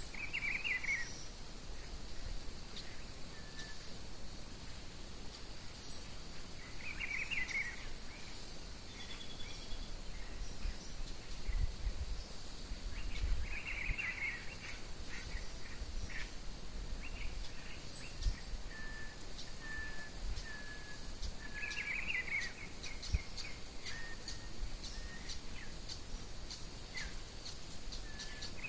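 Several wild birds singing and calling: a short, very high note repeats every two to three seconds, a lower warbled phrase comes about every six seconds, and a run of short, evenly spaced notes fills the second half. A faint steady high hiss runs underneath.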